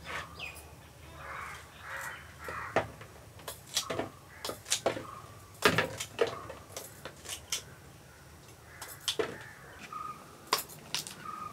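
A long kitchen knife peeling and cutting tapioca (cassava) root over a bamboo tray: a run of sharp, irregular scrapes and knocks. Bird calls sound in the background.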